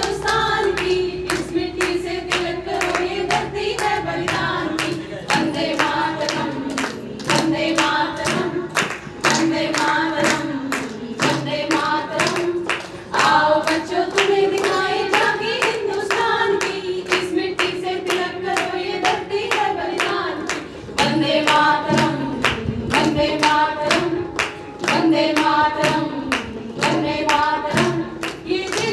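A group of women singing a patriotic song together into a microphone, accompanied by a steady beat of hand claps keeping time.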